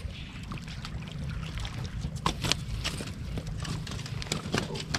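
Wind rumbling on the microphone, with a few short sharp sounds about two seconds in and again near four and a half seconds. These come as a hooked largemouth bass is brought in to the rocky shoreline.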